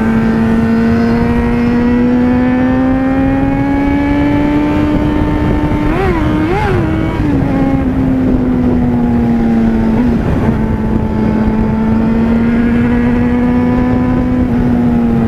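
Yamaha FZ6N motorcycle engine running at a steady cruise under wind rush, its pitch slowly rising and easing. About six seconds in it briefly revs up twice, and near ten seconds it dips for a moment before settling again.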